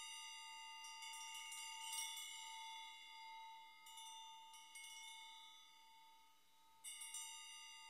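Faint, chime-like ringing tones, like wind chimes, with several notes held and ringing on and fresh strikes every second or two, a louder cluster near the end: the background sound of a TV channel's test-signal card.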